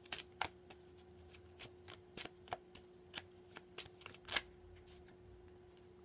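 Tarot cards being shuffled and handled by hand: a run of irregular light snaps and taps, stopping about four and a half seconds in, over a faint steady hum.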